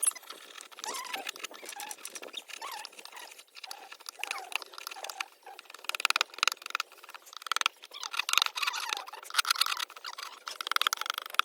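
Hand carving tool scraping and cutting wood in quick rasping strokes, with louder bursts from about six seconds in. A few short squeaky chirps come through in the first half.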